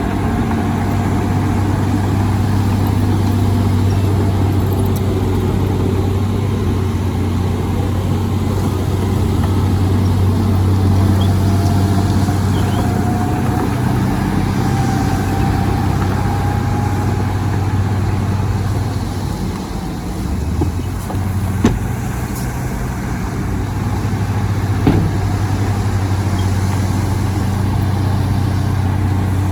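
Heavy diesel earthmoving machinery running steadily with a low drone, with two short knocks near the end.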